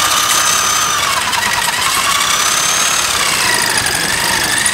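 Electric drill running under load, its bit boring through the metal of a tractor hitch held in a vise. The motor's whine sinks and rises in pitch as the load on the bit changes, over a steady grinding.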